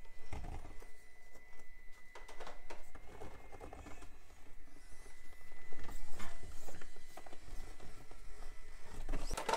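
Stock brushed motor and low-speed crawler gears of a Traxxas TRX-4M crawler whirring as the truck creeps slowly over rocks, with scattered knocks and scrapes from the tyres and chassis on the rock.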